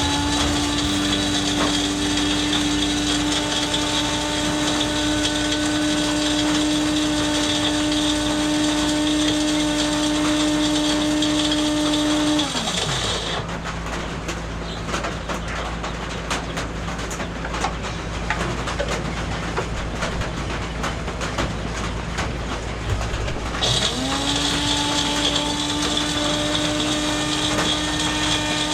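Electric water pump motor spinning up and running with a steady hum for about twelve seconds, then winding down. After a stretch of small clicks and splashy noise, it starts up again about twenty-four seconds in.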